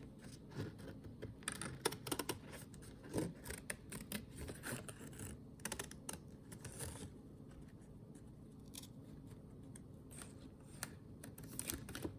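Scissors cutting printed thick paper: a run of small snips and paper rustles, busy for the first half, then sparse and fainter for a few seconds before picking up again near the end.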